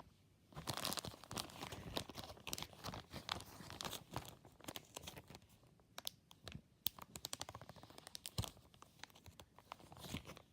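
Plastic zip-lock bag crinkling and crackling in irregular bursts as it is handled.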